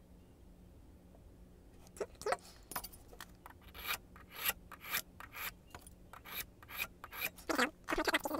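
A small hand file rasping across a key blank in quick back-and-forth strokes, about three a second, starting about two seconds in: cutting down the blank at the pin marks while impressioning a lock.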